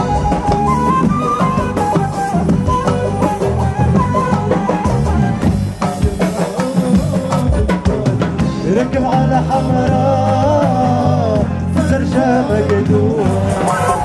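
Tunisian folk music: a wavering melody over steady drums.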